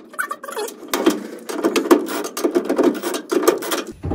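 Hand tool clicking and scraping in quick, uneven runs as the adjusting nuts on the parking brake cables are tightened.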